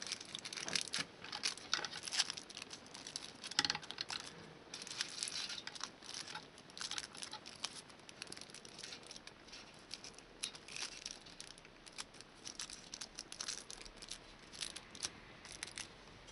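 Aluminium foil crinkling faintly in the fingers as the flaps of a cross cut in a foil-wrapped homemade exhaust gasket are folded back, an irregular run of small crackles.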